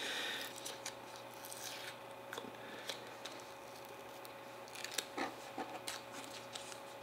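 Faint rustling and scattered light clicks of cardboard and paper packaging being handled. There is a brief rustle at the start and a small cluster of clicks and rustles about five seconds in.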